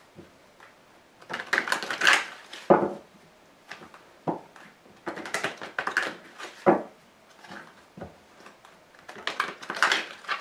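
A thick deck of tarot cards being shuffled by hand in several short bursts of crackling, riffling card noise, with a few sharper knocks in between.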